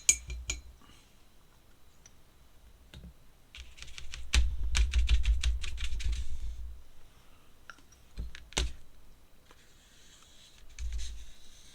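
A thick paintbrush loaded with ink tapping and dabbing on paper: a few sharp clicks, then a dense run of quick light taps for a couple of seconds in the middle, and two sharper clicks later on.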